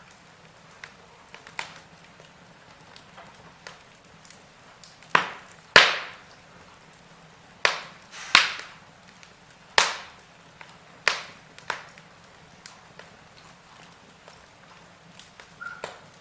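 Wood fire in a fireplace crackling, with sharp pops and snaps at uneven intervals. The loudest pops come in a run between about five and twelve seconds in.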